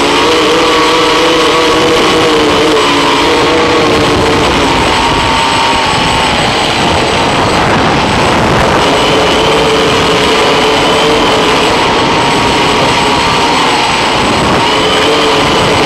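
Electric motors and propellers of a multirotor octocopter whining in flight, heard from on board: a steady rush of prop wash with several tones that slide up and down in pitch as the throttle changes.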